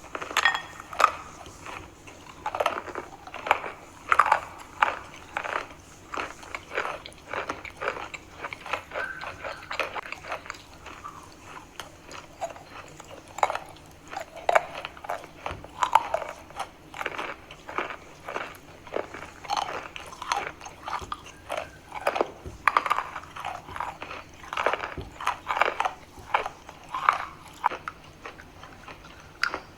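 Edible chalk being bitten and chewed close up: a steady run of irregular, crisp crunches, several to the second.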